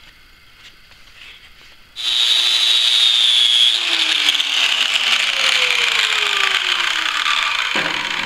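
Angle grinder with a sanding disc switched on about two seconds in: a steady high whine at speed, then a rough grinding hiss as the disc bears on the steel, sanding the paint off a weld on a small hydraulic cylinder. The grinding eases a little near the end.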